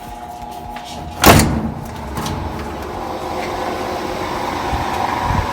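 Top-load washing machine starting a spin cycle in a diagnostic spin test. A loud clunk comes about a second in, then the motor and drum hum, growing steadily louder as the basket spins up.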